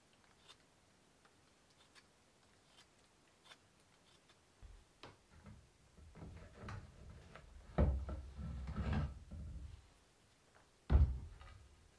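Hands handling a plastic bottle of white glue against an old chestnut-wood table top. There are a few faint ticks at first, then soft knocks and rustles. Two louder low thumps come about eight and eleven seconds in, and the first is followed by a second or so of rubbing.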